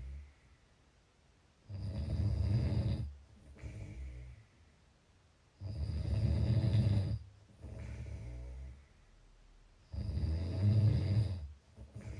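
A person snoring: three loud, low snores about four seconds apart, each followed by a softer breath.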